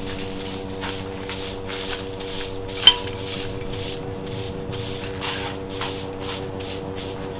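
Rhythmic hand scraping on the rusty steel blade of a farming knife being restored, about three strokes a second. A steady electrical hum runs underneath, and there is one sharper metallic click about three seconds in.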